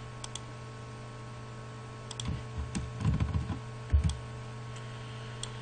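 Computer keyboard and mouse being worked: a few sharp clicks, and a cluster of dull keystroke thumps between about two and four seconds in. A steady low electrical hum runs underneath.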